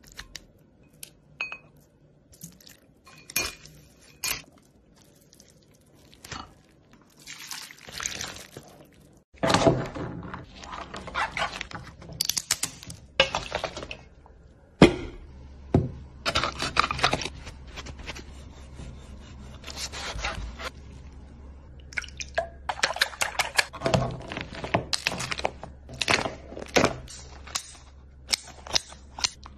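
Food-preparation sounds: a run of clinks of dishes and utensils and liquid being poured, then, in the last few seconds, a quick series of sharp crunching snips as kitchen scissors cut through a cooked coconut crab's shell.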